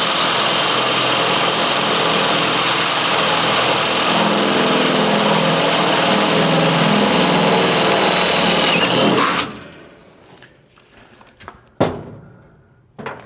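Electric drill with a 1/4-inch bit running steadily as it bores a hole through sheet metal for about nine and a half seconds, then stops. A single sharp knock follows a couple of seconds later.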